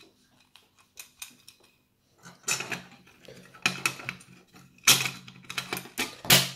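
Clicks, knocks and light metallic clatter as the dome camera's metal back plate is handled and fitted back into its mounting base. There are a few sharper knocks in the second half.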